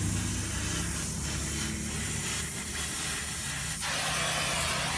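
High-pressure washer spraying water: a steady hiss over the hum of its pump motor, the hiss shifting in tone about four seconds in.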